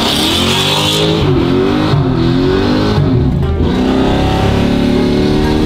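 LS-swapped Chevy S10 pickup's V8 engine revving hard under acceleration, its pitch rising and falling several times as it pulls through the revs, heard from inside the cab.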